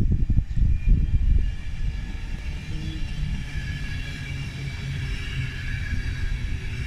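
Mark 4 coaches of an InterCity 225 train rolling past slowly as it arrives into a station, with a low rumble from the wheels and track. For the first second or so the rumble is gusty and uneven, then it settles, and faint high steady tones ring above it.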